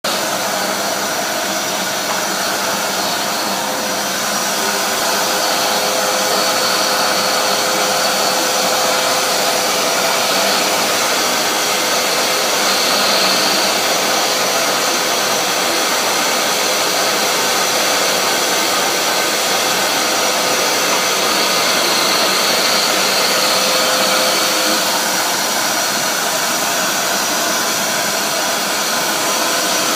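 Vacuum cleaner running steadily, its floor-brush nozzle drawn over a cat's fur on carpet: a loud, even rush of air with a high whine that grows stronger and weaker a few times.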